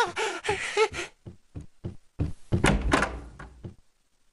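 A voice calling out trails off, then quick heavy footsteps pound up wooden stairs and a door bangs open with a loud thud and rattle. These are cartoon sound effects.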